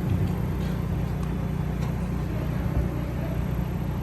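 Steady low rumble of city road traffic, with a few faint ticks.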